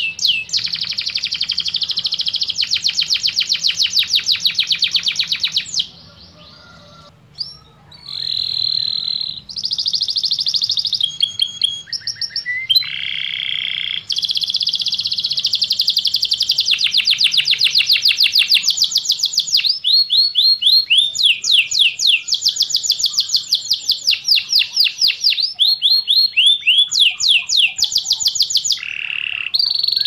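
Domestic canary singing: long, rapid trills of repeated notes, each trill giving way to a different one, with a short pause about six seconds in.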